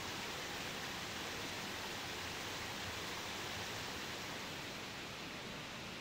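Steady rushing hiss of water from a small, wide spring-fed waterfall, groundwater pouring in many streams from gaps in a mossy rock face. It eases slightly near the end.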